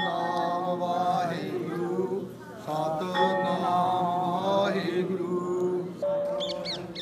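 Devotional Sikh hymn (shabad kirtan) sung over a steady drone, in two phrases with a short break about two and a half seconds in. Near the end a brief high warbling sound.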